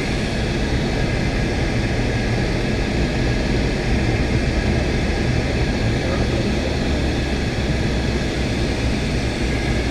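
Steady cabin noise inside a Boeing 757-200 airliner: the low rush of its twin jet engines and the airflow over the fuselage, heard from a window seat, with a few faint steady tones above it.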